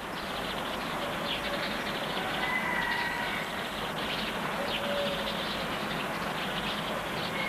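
Birds calling now and then over a steady hiss: short held notes and a few quick chirps.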